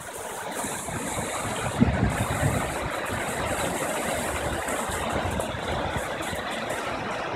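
Steady rush of whitewater in tidal rapids, with one thump about two seconds in.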